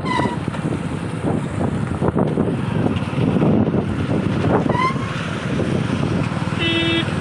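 Wind buffeting the microphone on a moving motorcycle, over the bike's engine and tyre noise on a wet road. A short horn beep sounds near the end.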